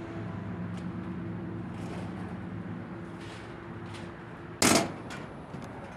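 A single sharp bang on corrugated metal roofing panels about three-quarters of the way through, over a steady low hum.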